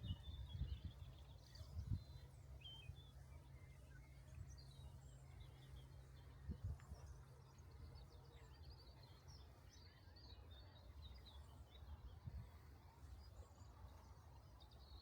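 Faint birdsong: small birds chirping and twittering in short, scattered phrases over a low outdoor rumble, with a few soft low thumps.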